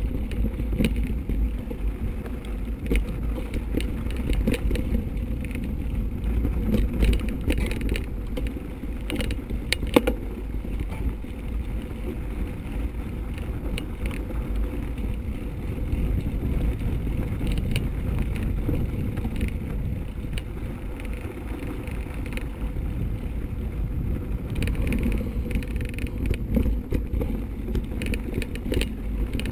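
Mountain bike rolling over a snow-dusted dirt trail heard from a bike-mounted camera: a steady low rumble of wind and tyre noise on the microphone, with scattered rattles and knocks as the bike goes over bumps, one sharp knock about a third of the way in.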